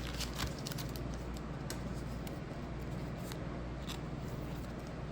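Baseball cards being handled and slid into plastic card sleeves: soft scraping of card against plastic with scattered small clicks.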